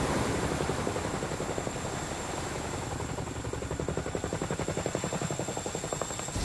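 Boeing CH-47 Chinook tandem-rotor helicopter hovering low over water, its rotors making a fast, even chop over the rush of rotor-wash spray. The spray rush is strongest at the start.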